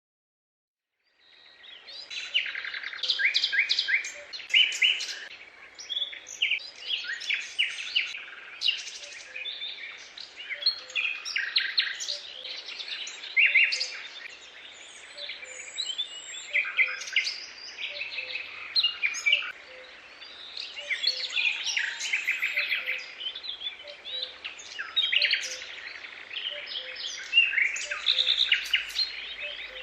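Many small birds chirping and singing together in a dense, continuous chorus of quick chirps and trills, starting about a second in.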